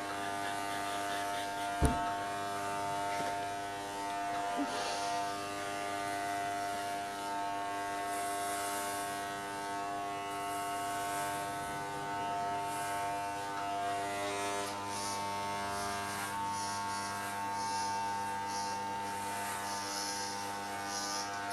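Corded electric hair clippers buzzing steadily as they shave hair off a man's head, with a patchy hiss of cutting coming and going. There is a single sharp click about two seconds in.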